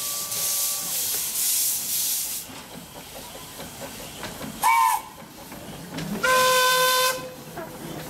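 Narrow-gauge steam locomotive passing: hissing bursts of steam from the cylinders for the first couple of seconds, a short toot about halfway, then the steam whistle held for about a second near the end.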